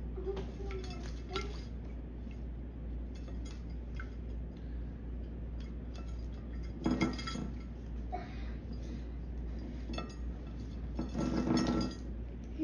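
Green-cheeked conure bathing in a shallow ceramic plate of water, with light clinks against the plate. It splashes and flaps its wet wings in two louder bursts, one about halfway through and a longer one near the end.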